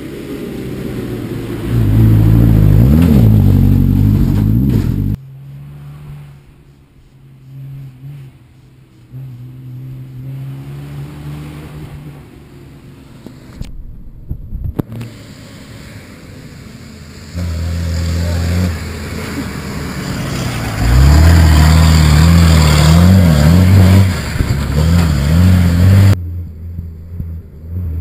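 Rally vehicle engines revving and accelerating hard, pitch rising and dropping through gear changes, in several short clips that cut abruptly from one to the next. The loudest full-throttle runs come in the first few seconds and again in the second half, with a quieter, steadier engine sound between.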